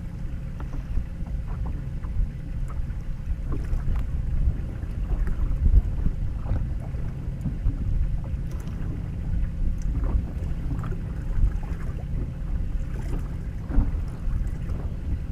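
Wind buffeting the camera microphone and water lapping against a fishing boat's hull: a steady low rumble with scattered small clicks.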